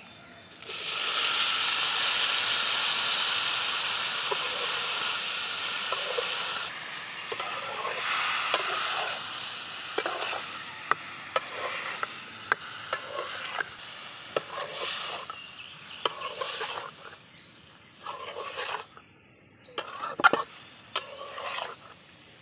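Boiled vegetables hitting hot oil in a metal karahi: a loud sizzle starts about a second in and dies down after several seconds. A metal spatula then stirs and scrapes the vegetables against the pan with repeated sharp clicks.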